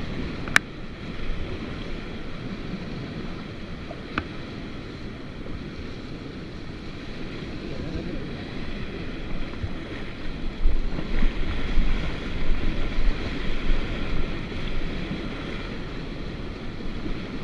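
Mountain river water rushing steadily through rapids, with wind buffeting the microphone. Two sharp knocks come near the start, and uneven louder low rumbles come around the middle.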